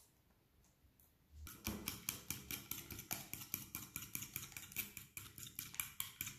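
A metal fork beating eggs, sugar and sunflower oil in a glass bowl. From about a second and a half in, it clicks against the glass in a fast, even rhythm of about five strokes a second.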